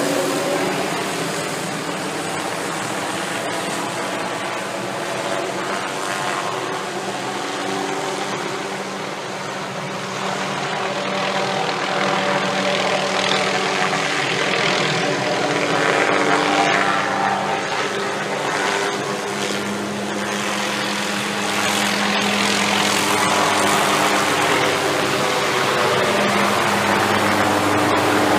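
Helicopter running, its rotor and engine making a steady drone that eases a little partway through and grows louder near the end.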